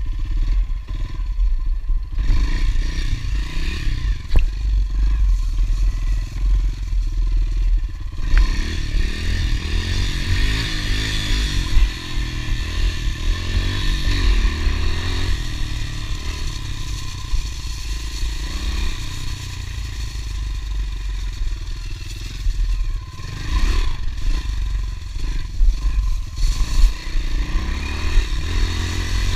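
Honda CRF110F pit bike's small air-cooled four-stroke single-cylinder engine running and revving up and down while being ridden, with a few sharp knocks from the bike going over bumps.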